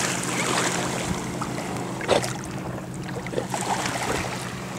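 Lakeshore ambience: small waves lapping against a grassy bank over a steady low hum, with a single sharp knock about two seconds in.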